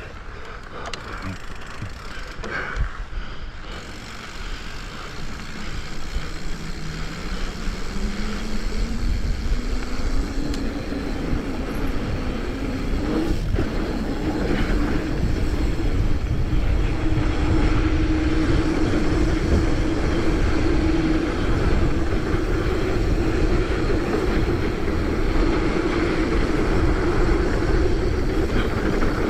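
Mountain bike rolling fast down a dirt trail: tyre and bike rattle mixed with wind rushing over the helmet or bike camera microphone. A hum climbs in pitch for several seconds as speed builds, then holds steady. A single sharp knock comes about thirteen seconds in.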